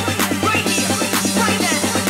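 Tech house dance music with no vocals: a steady bass line under fast repeating synth notes, with a clap about once a second.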